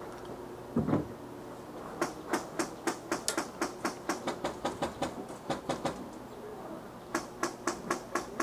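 Quick run of sharp taps, about five a second, for about four seconds, then a shorter run near the end, with a dull thump about a second in.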